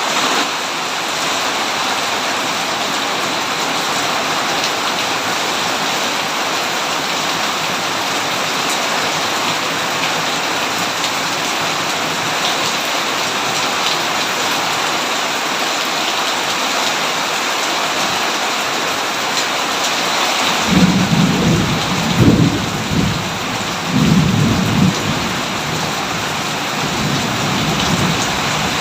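Steady heavy rain falling. About two-thirds of the way through, thunder rumbles in several low swells over the rain.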